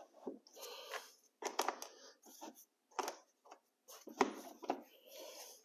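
A luxury vinyl plank being slid and pressed into place on an OSB subfloor: soft scraping with several light knocks and clicks, the sharpest a little after four seconds in.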